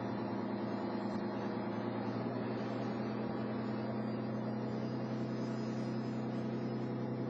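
Riverboat's engine running with a steady low drone.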